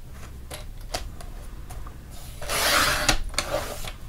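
Sliding paper trimmer cutting through cardstock: a few light clicks and taps as the sheet is lined up, then one scraping stroke of the blade carriage along the rail, about a second and a half long, beginning a little past halfway. The blade is one the owner says has gone dull and needs changing.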